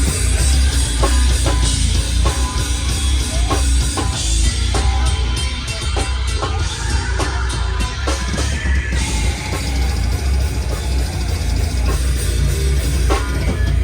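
A heavy hardcore band playing live at full volume: a pounding drum kit over a thick, heavy low end, with no break in the song.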